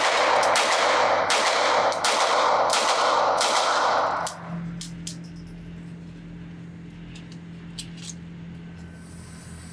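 Fowler Vanta 9 Ported MTO, a ported 9mm 2011 pistol, firing a string of shots about half a second apart, each with a long echo. The firing stops about four seconds in, and a few light clicks follow.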